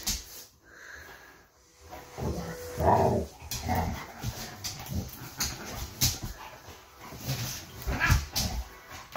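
A pit bull play-fighting with a cat: scuffling and short thumps of paws, with a brief dog vocal sound about three seconds in, the loudest sound.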